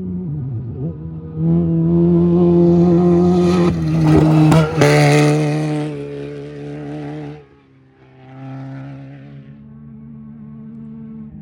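Off-road race vehicle passing close at speed. Its engine note holds steady, drops in pitch as it goes by about five seconds in, then fades away. A fainter vehicle sound follows briefly.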